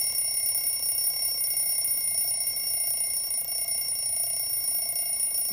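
Twin-bell mechanical alarm clock ringing continuously, a steady high-pitched ring.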